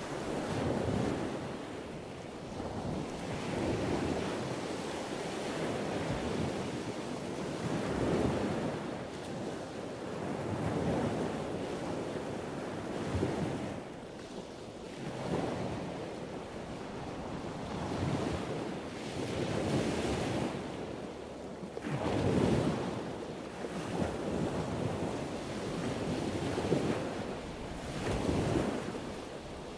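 Ocean waves washing and surging, swelling and falling every few seconds, with wind on the microphone.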